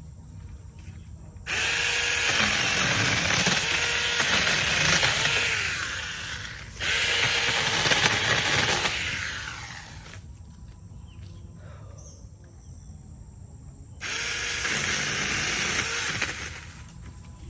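SeeSii 6-inch battery-powered mini chainsaw running in three bursts while cutting branches, each starting suddenly. The first two nearly run together and the third is shorter, near the end. The pitch dips and recovers within each burst.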